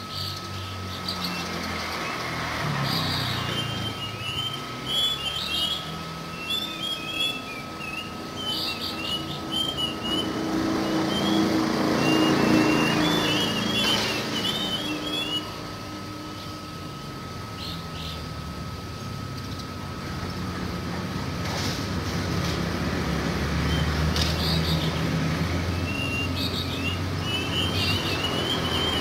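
Plaintive cuckoo calling, short high whistled phrases repeated every second or two. A vehicle engine rumbles in the background, loudest a little before midway and again near the end.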